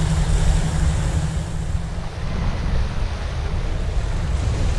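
Wind noise on the microphone over waves washing and breaking against shoreline rocks.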